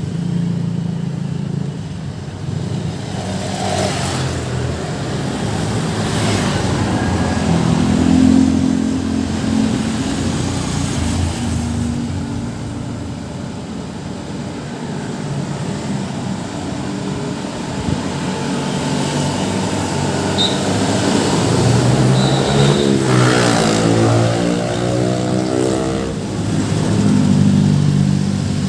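Road traffic going by: vehicle engines running steadily, with one vehicle passing close late on.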